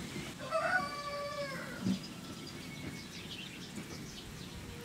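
An animal call, drawn out for about a second with a wavering, gliding pitch, followed by faint short bird chirps a couple of seconds later. There is a soft knock just before two seconds in.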